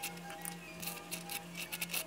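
A small metal spoon scraping and tapping across a slice of toast as mustard is spread, making a run of short scratchy clicks that grow busier near the end. Soft background music plays underneath.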